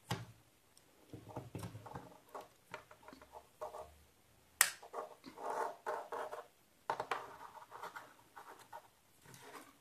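Faint handling noises of a cable and opened LED bulb parts being moved on a workbench: rustling and scratching, with a few sharp clicks.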